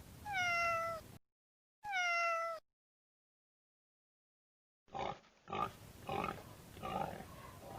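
Domestic cat meowing twice, each call falling in pitch. After a silent gap, a pig grunts in a series of short, rough bursts.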